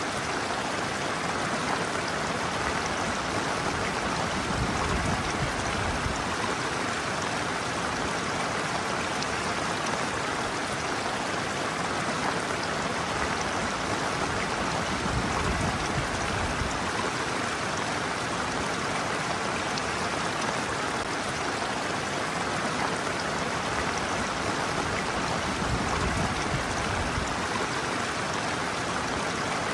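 Shallow stream water running steadily over a sloping bed. A few brief low swells come and go, about 5, 15 and 26 seconds in.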